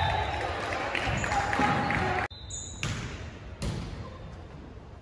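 Volleyball game sounds in a large gym: players' and spectators' voices with the thumps of the ball. The sound cuts off suddenly a little over two seconds in, then goes on quieter, with a couple of thumps.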